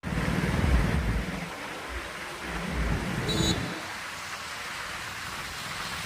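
Heavy rain falling steadily, with low rumbles in the first second and again around three seconds in, and a brief high tone just after three seconds.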